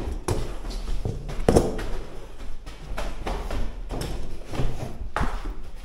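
A series of irregular knocks and thuds, about half a dozen spread unevenly over several seconds, over a low rumble.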